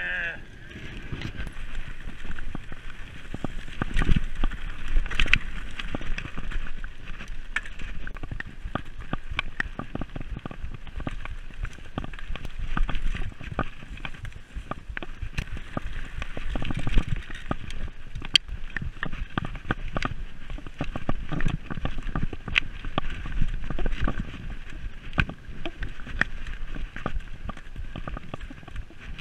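Mountain bike ridden down a rough dirt and stone singletrack, heard from on the bike: tyres crunching over the trail, with frequent sharp knocks and rattles from the bike over the bumps and a low rumble underneath.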